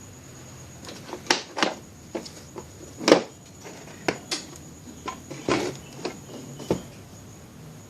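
About ten irregular clicks and knocks of hand tools and parts being handled on a workbench, the loudest about three seconds in, over a faint steady high-pitched whine.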